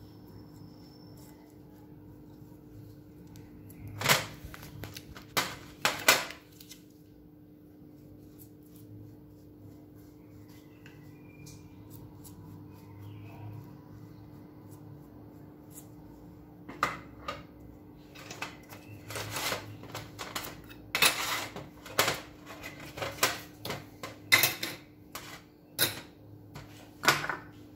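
Light clicks and taps of fluted metal cake moulds set down on a metal baking tray, with a pastry brush against a glass bowl, while mini cakes are glazed. The clicks come in a short cluster about four seconds in and again, more often, through the last ten seconds, over a steady low hum.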